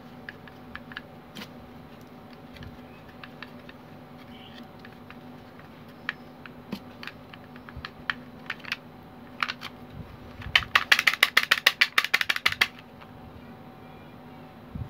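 Scattered clicks and taps from a hand cigarette-rolling machine being worked, then a fast run of loud clicks, about ten a second, for two seconds near the end. A steady low hum runs underneath.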